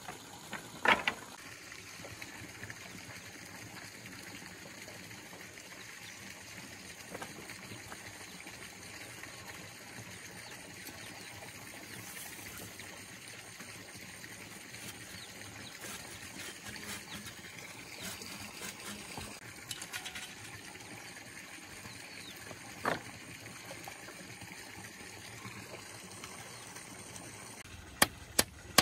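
Steady outdoor background hiss with a few scattered knocks. Near the end a run of sharp, evenly spaced strikes on wood begins, about two a second.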